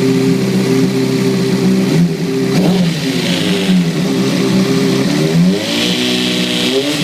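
2006 Honda CBR600RR inline-four engine idling, then revved: a short blip about two and a half seconds in and a longer rev held for about a second and a half near the end. The owner hears a weird engine noise he took for the cam chain tensioner and thinks it is still there after replacing the tensioner, though he is unsure.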